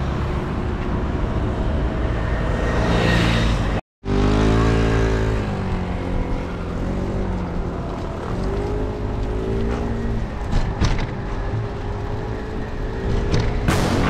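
Motor vehicle engines running, their pitch rising and falling, over a heavy low rumble. The sound drops out completely for a moment about four seconds in, and a few short clicks come near the end.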